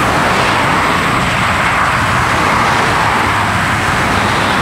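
Steady running noise of a car on the move: tyre and road noise over a low engine hum.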